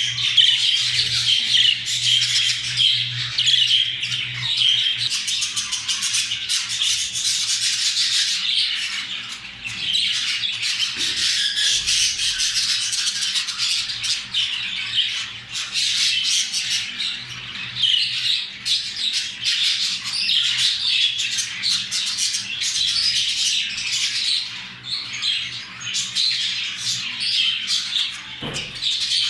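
Budgerigars chattering and warbling without pause, a rapid scratchy stream of chirps and squawks: the warbling of budgies during mating.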